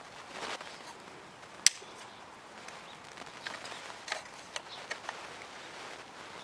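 Hands handling the PS90's polymer body and small internal parts: light scraping and a scatter of small clicks, with one sharp click about a second and a half in.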